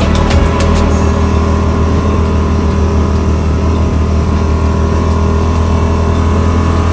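Side-by-side UTV engine running steadily under way, a loud low drone. A rapid ticking runs alongside it and stops about a second in.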